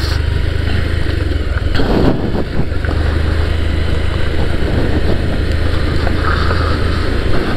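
Motorcycle engine running steadily while riding over a rough dirt road, with wind noise on the microphone.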